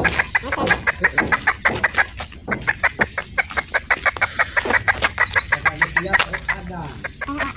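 Junglefowl rooster clucking rapidly in a fast, even run of short sharp clucks, about five or six a second, thinning out near the end.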